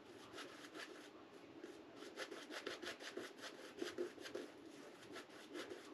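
Shaving brush rubbing lather onto a face in quick, soft bristle strokes, several a second.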